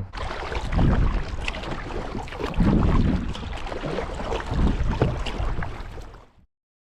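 Water sloshing and knocking around a fishing kayak under way, with wind rumble on the microphone, swelling about every two seconds. The sound cuts off abruptly near the end.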